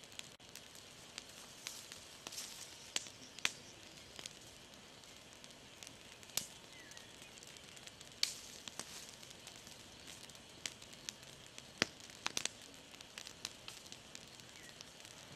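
Open wood campfire crackling: irregular sharp pops over a faint hiss, with a few louder pops, including a quick run of them about twelve seconds in.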